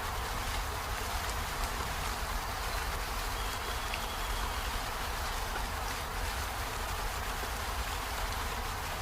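Steady rain falling on peony flowers and leaves: an even hiss with scattered faint drop ticks over a low rumble. A faint thin high tone comes in for a second or two about three seconds in.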